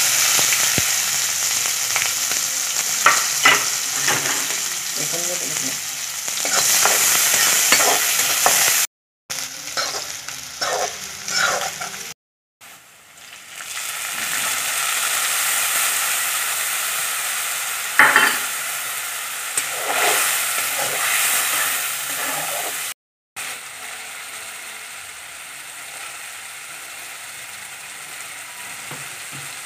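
Sliced onions frying in hot oil in a wok: a steady sizzle with a spatula scraping and clicking against the pan. Partway through, spice paste poured into the oil brings up a louder sizzle, which settles to a quieter, even sizzle near the end.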